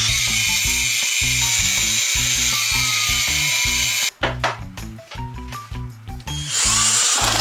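A power tool running steadily with a high-pitched noise, cutting off about four seconds in, then a shorter burst near the end, over background music with a steady beat.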